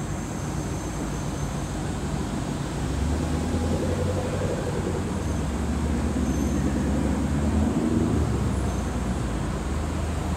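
Street traffic noise, with a car's engine growing louder and passing by from about three seconds in to about eight seconds in.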